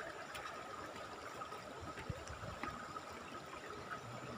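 Shallow river flowing over rocks: a steady rushing of water, with a faint steady high tone and a few light ticks over it.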